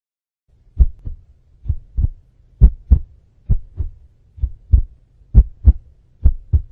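Heartbeat sound effect, a steady run of seven double 'lub-dub' thumps about one a second over a faint low hum, used as a suspense effect before a result is revealed.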